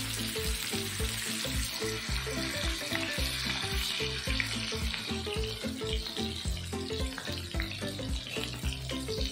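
Turmeric-marinated boal fish steaks sizzling in hot oil in a frying pan as the pieces are laid in, a steady hiss throughout. Background music with a steady beat plays underneath.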